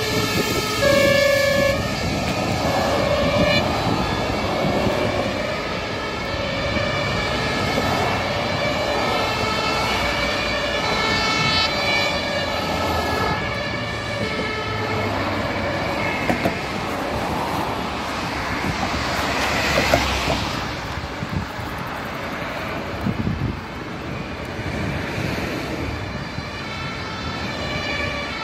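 Fire engine's two-tone siren sounding, alternating between two notes about once a second, over road traffic noise that swells loudly about twenty seconds in as the vehicle passes close.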